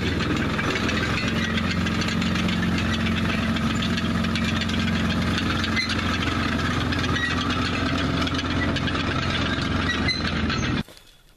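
Engine of a homemade KETTENKRAD-style tracked motorcycle running steadily as the machine drives off; the sound cuts off suddenly near the end.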